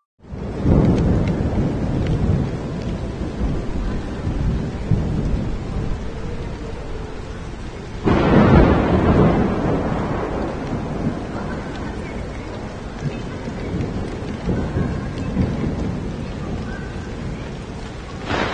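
Thunder over heavy rain. A rolling rumble begins about half a second in and slowly fades, and a second, sharper clap comes about eight seconds in and rolls on for several seconds, all over the steady hiss of downpour on the street.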